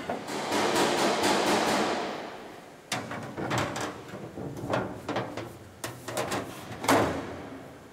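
Several sharp knocks and clanks of aluminium body panels being handled and fitted to a car body shell, the loudest near the end, after a rushing noise that fades over the first couple of seconds.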